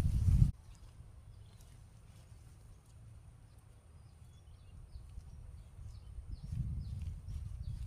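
A low rumble cuts off abruptly about half a second in. After it, faint birdsong of short, high, falling chirps repeats over and over, and the low rumble swells back in near the end.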